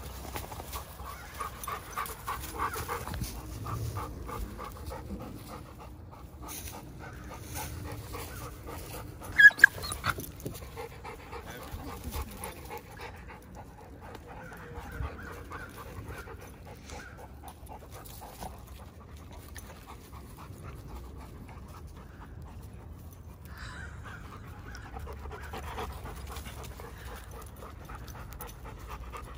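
Giant schnauzers panting hard during rough play. Two short, sharp, loud sounds come close together about nine and a half seconds in.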